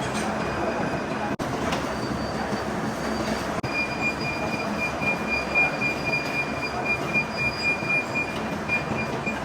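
Metalworking machine running in a machine shop, a dense grinding noise of metal being cut. After a brief break a few seconds in, a steady high-pitched squeal rides on top.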